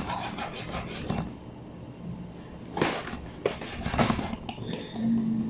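A few sharp knocks and clatters about three to four seconds in, followed near the end by a short steady whine.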